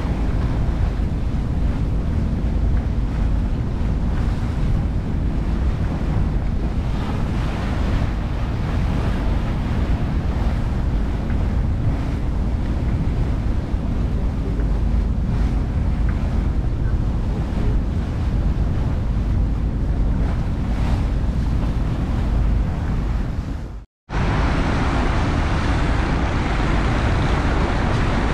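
A boat under way: its engine runs steadily under the rush of water and wind buffeting the microphone. About four seconds before the end the sound cuts out for a moment and returns with more hiss.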